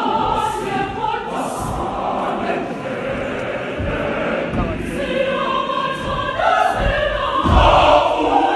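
Large mixed choir of women and men singing a traditional African choral song in unison, with a few low thumps in the second half.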